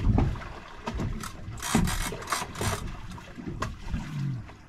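Two-speed fishing reel ratcheting and clicking in quick, uneven runs while a hooked shark is fought on the line.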